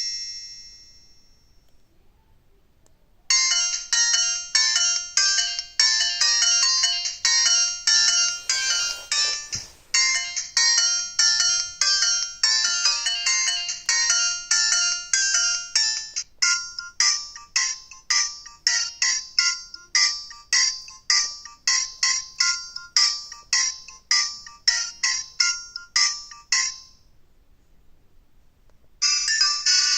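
Alcatel OT-1016D mobile phone's loudspeaker playing polyphonic ringtones. The end of one tune dies away, and after a short pause a new melody of quick, evenly paced notes plays for about 23 seconds, changing to a sparser, higher passage about halfway through, then stops. The next tune starts near the end.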